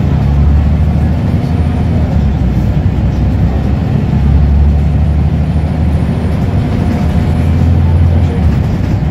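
Scania L94UB Wright Solar single-deck bus heard from inside the passenger saloon, its rear-mounted diesel engine running as the bus drives along. A steady low drone strengthens about four seconds in and eases off near the end.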